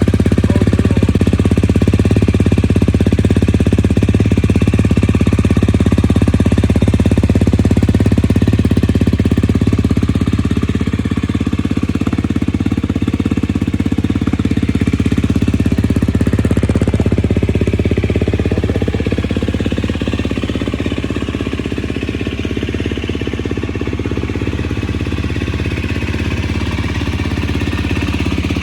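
2019 KTM 250 SX-F's single-cylinder four-stroke engine idling steadily through its stock exhaust, freshly started. The idle sags a little about two-thirds of the way through and picks back up near the end.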